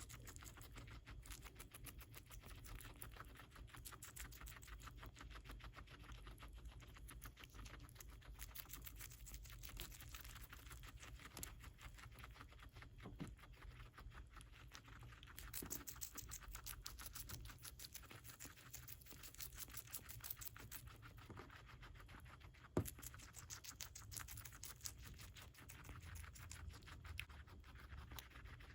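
Guinea pig chewing lettuce: a fast, continuous run of soft crunching clicks from its small bites. One sharper knock stands out about two thirds of the way through.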